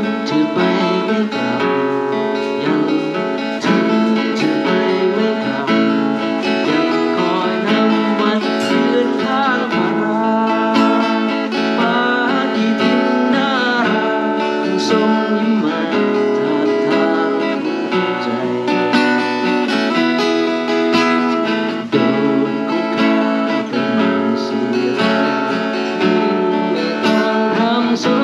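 Guitar playing a melodic tune, with some notes gliding in pitch around the middle.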